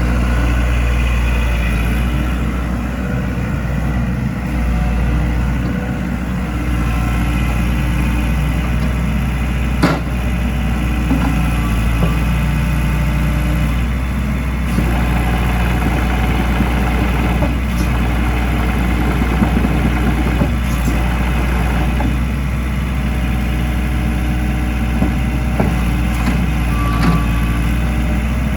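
Diesel engine of a 2007 New Holland Kobelco E80MSR zero-tail excavator idling steadily. A sharp knock comes about ten seconds in, and a few lighter clicks follow.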